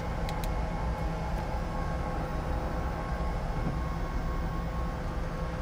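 Steady hum of a regional jet's two engines running at ground idle, heard from inside the cockpit, with a few light clicks in the first second and a half.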